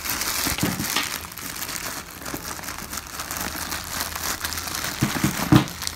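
Plastic bag crinkling and rustling as it is handled and pulled out of a fabric pannier pocket, with a few light knocks; the loudest comes about five and a half seconds in.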